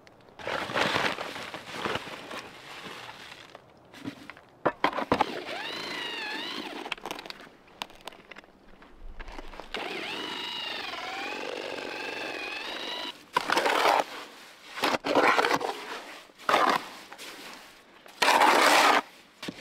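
Handheld electric paddle mixer churning lime mortar in a plastic bucket, its motor whining with a wavering pitch as the paddle drags through the thick mix: once briefly about six seconds in, then for about three seconds from ten seconds in. Loud bursts of scraping and handling noise come before and after the mixing.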